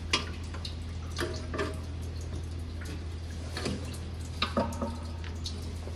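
Fuel dripping from a fuel filter left to drain, in irregular single drops that land with short ticks and brief plinks, over a steady low hum.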